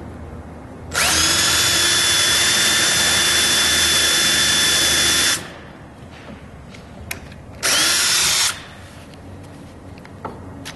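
Milwaukee M18 cordless 1/2" hammer drill driver running at steady full speed for about four seconds, then a second short burst of under a second; each run starts with a quick rise in pitch as the motor spins up.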